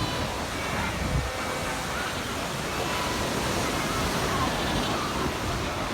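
Steady wash of surf and wind at a Cape fur seal colony, with faint, scattered calls from the seals over it.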